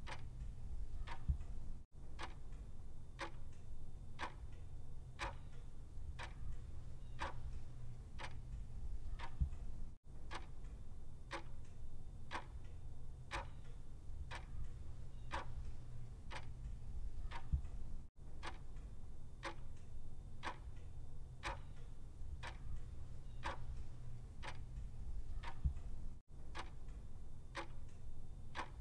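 Clock ticking at a steady, even pace over a low steady hum. The sound cuts out for an instant about every eight seconds.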